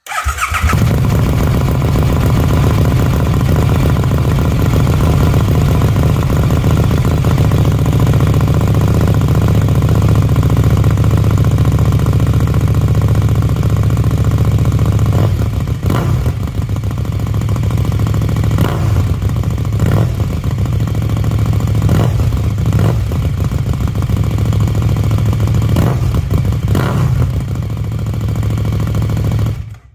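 KTM Duke motorcycle engine running through an Austin Racing V3 slip-on exhaust: a steady idle for about fifteen seconds, then the throttle blipped several times in the second half before the engine stops.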